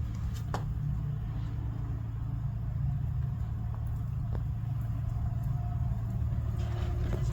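Steady low mechanical hum with a constant pitch, like an engine or motor running, with a few faint ticks.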